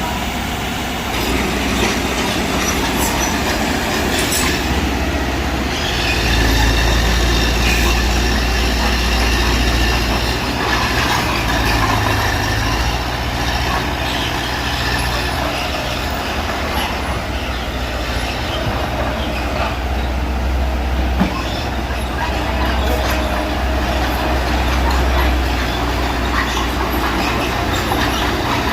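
Mitsubishi BD2G crawler bulldozer at work: its diesel engine runs steadily under load, pulling harder twice, while the steel tracks squeal and clank.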